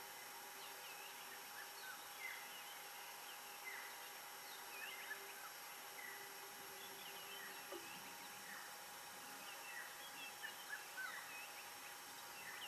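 Faint, scattered short high chirps from animals, a few a second at times, over a steady faint hum and hiss.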